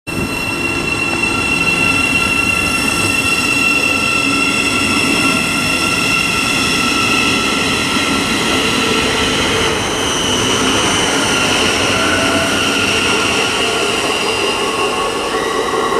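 Thameslink Class 700 electric multiple unit pulling out of the station: a loud, steady rumble under several high whining tones from its electric traction equipment, some of which rise in pitch in the second half as it gathers speed.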